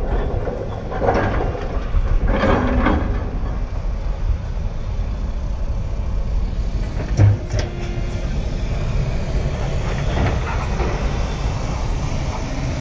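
A moving car's steady low road and wind rumble on a rough site road, swelling twice as it goes, with a single thump about seven seconds in.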